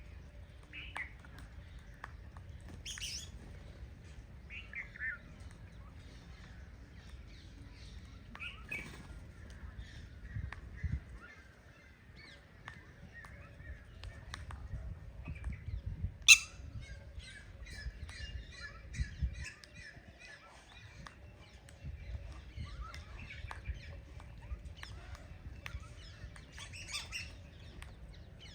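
Birds calling outdoors: crows cawing among scattered chirps of smaller birds, with one sharp loud click about sixteen seconds in.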